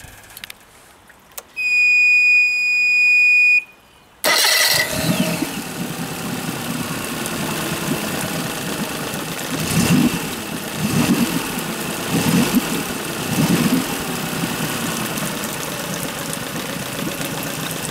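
A steady high electronic beep for about two seconds, then a Suzuki DF50 four-stroke three-cylinder outboard starts at once and settles into a whisper-quiet idle, with a few brief low swells in the middle.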